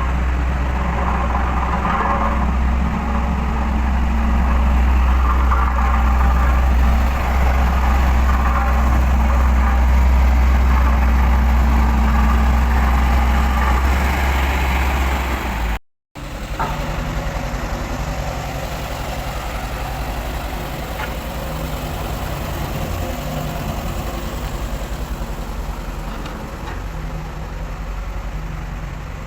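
A Dynapac vibratory road roller's diesel engine runs steadily under load, with a strong low hum. The sound cuts out for a moment about halfway through, then the machine continues with a lighter, evenly pulsing low rumble.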